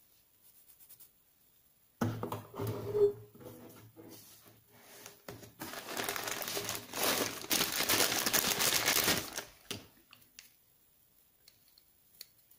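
Plastic packaging bags crinkling and rustling as items are pulled from a foam-lined box. It starts suddenly about two seconds in with handling bumps, grows into loud, dense crinkling, then stops about ten seconds in, leaving a few faint clicks.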